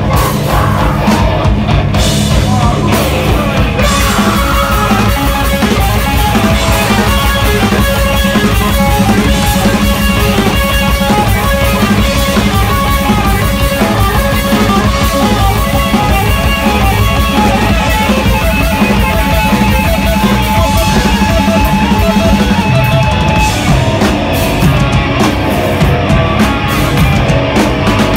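Live hardcore metal band playing loud: distorted electric guitars and a drum kit, dense and unbroken, with a sustained guitar note ringing over the riff in the second half.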